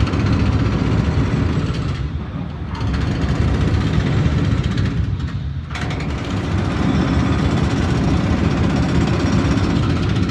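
Large diesel engine of a mobile crane running steadily while it holds a suspended steel beam, with the higher hiss briefly dropping away about two seconds and about five seconds in.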